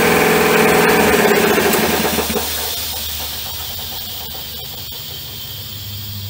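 Bauer C-E1 high-pressure air compressor running with a steady hum, then winding down about two and a half seconds in, leaving a quieter hiss of air and a low hum.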